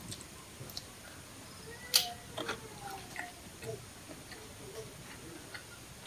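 Quiet eating sounds while chewing seafood by hand: scattered mouth clicks and smacks, with one sharper click about two seconds in.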